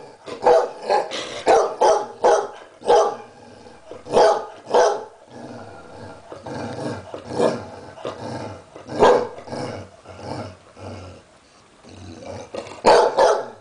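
Basset hound barking repeatedly in short barks, often two or three close together, with pauses between the clusters and a longer lull shortly before the end.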